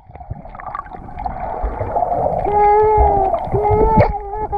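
Muffled water churning and bubbling heard underwater, then from about two and a half seconds in a muffled human voice held on a few long pitched notes, heard through the water.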